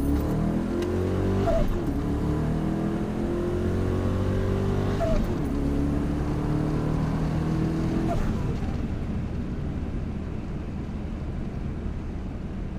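Turbocharged pickup truck engine at full throttle on a drag-strip pass, heard from inside the cab. Its pitch climbs through each gear, with upshifts about 1.5, 5 and 8 seconds in. After the last shift the engine sound gradually fades as the run ends.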